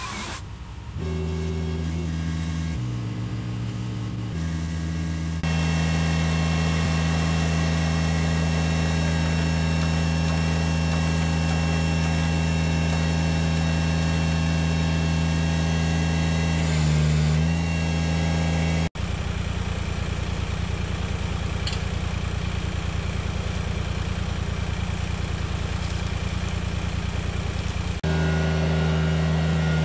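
Compact tractor engine running steadily, with a brief rise in revs about two-thirds of the way in.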